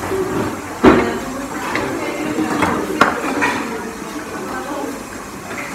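Kitchen clatter of pots, pans and utensils, with a sharp knock about a second in and another about three seconds in, over background chatter.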